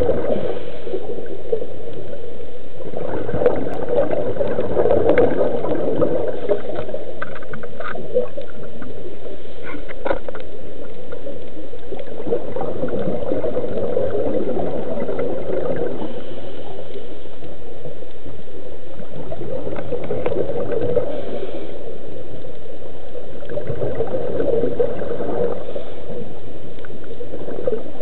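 Underwater: a scuba diver's exhaled bubbles gurgling in swells that come and go every few seconds, over a constant muffled rush of water.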